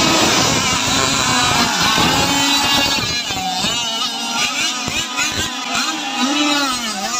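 Several petrol-engined RC tunnel catamaran powerboats at full throttle make a loud, high-pitched buzz of many small two-stroke engines together. From about halfway through, their pitches rise and fall as the boats pull away across the water.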